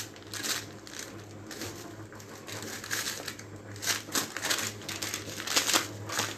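Plastic packaging crinkling in irregular, crackly bursts as a salt packet is handled, over a faint steady low hum.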